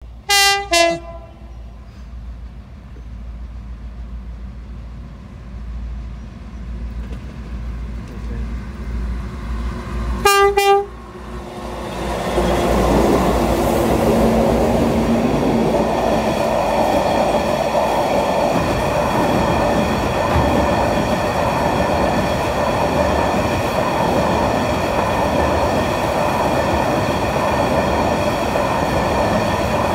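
Diesel freight train's horn sounding short blasts right at the start and again about ten seconds in as it approaches. The locomotive's engine then comes by and the line of grain hopper wagons rolls past with a steady rumble and clatter of wheels on rail.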